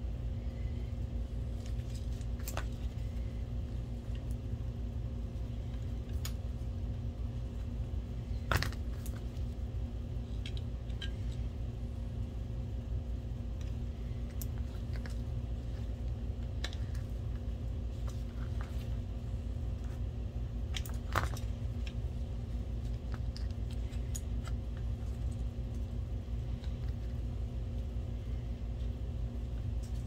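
Scattered small clicks and taps of hands fitting a projector lamp connector and its wiring, two of them louder and sharper, about a third and two-thirds of the way in, over a steady low room hum.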